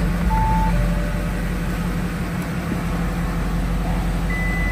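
Audi A8's engine idling cold just after a start, a steady low hum. A short electronic beep sounds about half a second in, a softer lower one just after, and a thin higher tone near the end.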